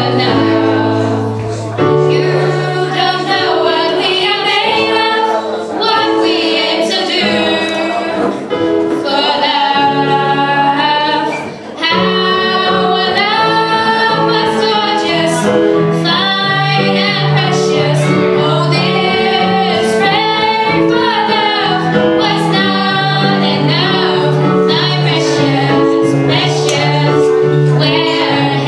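A group of young women singing a song together in harmony, accompanied by keyboard chords, performed live.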